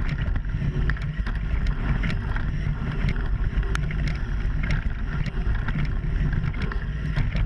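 Mountain bike ridden over a dirt trail, heard from a camera mounted on the bike: a steady low rumble of tyres and wind on the microphone, with frequent sharp clicks and rattles from the bike over the bumps.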